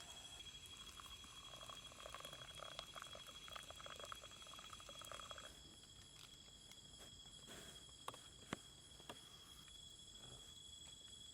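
Faint forest ambience: insects trilling with a steady high tone. Soft crackling for the first five seconds or so stops, and a few sharp clicks come near the end.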